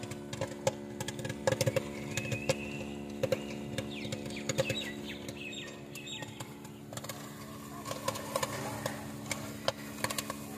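Kettle popcorn machine running with a steady hum, over scattered sharp clicks and pops from the hot kettle as the cook pours from a steel cup. Birds chirp briefly in the first half.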